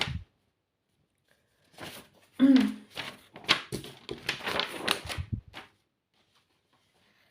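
Book pages rustling as they are turned, a run of quick paper scrapes and flicks from about two seconds in to about five and a half seconds in.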